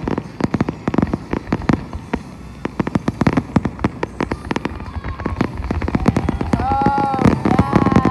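Fireworks finale: a rapid, dense run of bangs and crackling pops. A voice calls out briefly near the end.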